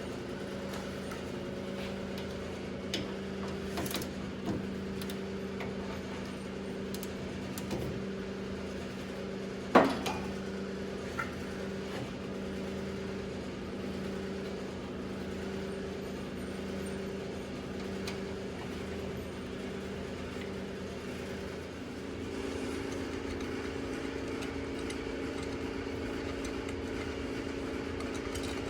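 A steady mechanical hum from a running machine, which changes tone about two-thirds of the way through. Over it come occasional light clicks of small metal parts being handled during brake shimming, and one sharp knock near the middle.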